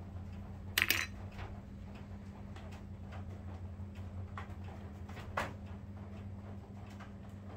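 Light taps and clinks from handling a glass-powder sifter and powder jars, with a louder clatter about a second in and a sharp click about five and a half seconds in, over a steady low hum.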